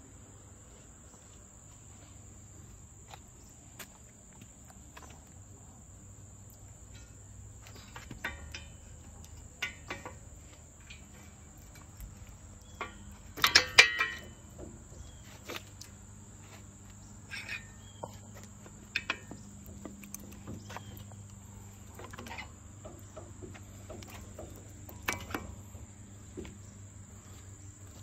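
Scattered metal clinks and knocks as a steel grapple attachment is handled and fitted by hand onto the arm of an AGT QH13R mini excavator, loudest in a quick cluster of clanks about halfway through. A steady high-pitched insect drone runs underneath.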